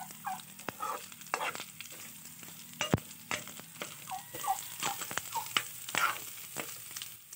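Chopped chicken pieces sizzling as they fry in a wok, with a spatula scraping and clacking against the pan at irregular moments as the meat is stirred; the sharpest clack comes about three seconds in.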